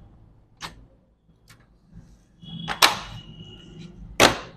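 Sharp clicks and knocks of a laptop's case parts being handled and pressed into place, four in all, the two loudest about three and four seconds in.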